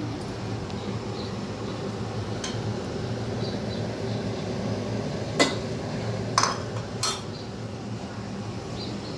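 Kitchen dishes and utensils clinking: a few sharp clinks against a steady low hiss, the loudest three in quick succession between about five and seven seconds in.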